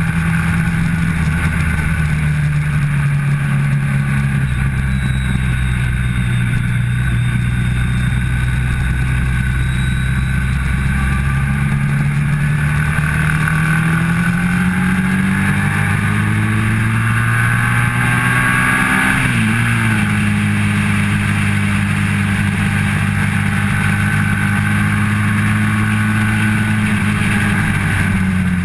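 Motorcycle engine running at track speed, heard from on the bike: its pitch holds steady, climbs for several seconds under acceleration, drops sharply at an upshift about two-thirds through, then holds again and falls near the end as it backs off.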